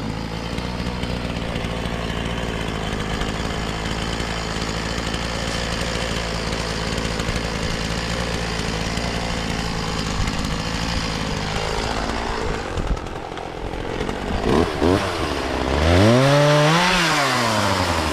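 Two-stroke chainsaw running steadily at low speed, then revved up and back down several times in the last few seconds, the loudest a long rev rising and falling near the end.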